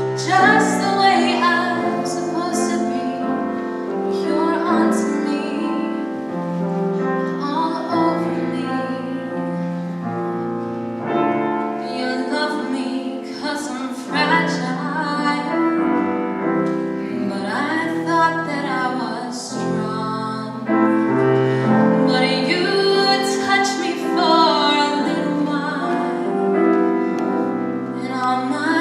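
A woman singing with piano accompaniment, holding long notes with vibrato.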